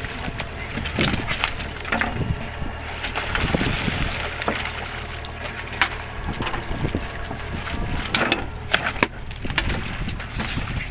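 Irregular knocks and clatter on a wooden fishing boat, over a steady low drone and wind noise.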